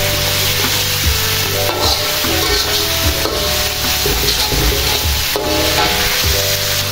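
Chili spice paste sizzling in hot oil in a metal wok while a metal spatula stirs and scrapes across the pan, with a few sharper scrapes, over background music.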